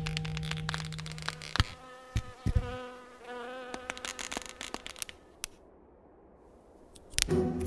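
Insect-like buzzing that wavers in pitch, amid scattered sharp clicks, as a held music note fades out; the music comes back in near the end.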